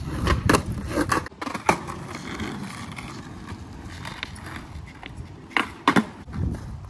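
Skateboard wheels rolling on rough asphalt, with several sharp clacks of the board hitting the pavement during flatground tricks: a few in the first two seconds and a pair near the end.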